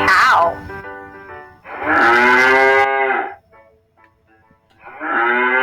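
Cow mooing twice, each moo a long, even call of about a second and a half.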